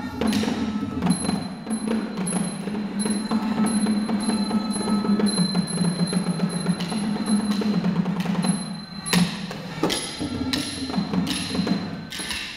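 Thai traditional percussion accompaniment for lakhon chatri dance: small cymbals ringing in a steady beat about twice a second over low, continuous drumming. Two loud sharp strikes come about nine and twelve seconds in.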